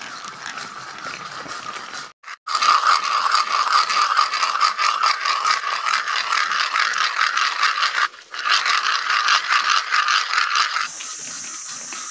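Stones being ground and rubbed rapidly against each other: a fast, dense, dry rattling grate, the noise used to lure freshwater crabs out of their holes among the rocks. It breaks off for a moment about eight seconds in and stops about a second before the end.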